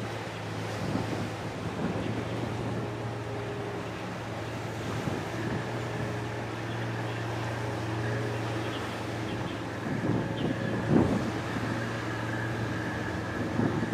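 Steady low drone of ships' diesel engines, a constant hum with faint higher tones over it, with wind buffeting the microphone now and then, most strongly about eleven seconds in.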